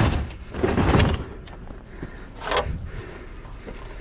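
A dishwasher being shoved and shifted on a truck bed: scraping and rumbling from its metal body, with a sharp knock about two and a half seconds in.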